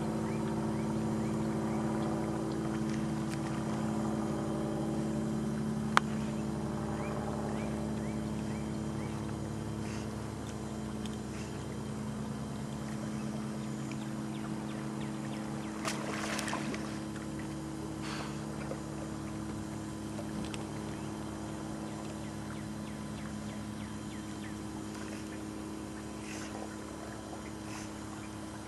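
A motor running steadily: a low hum of several steady tones that softens a little over time. A sharp click comes about six seconds in, and a brief rush of noise about sixteen seconds in.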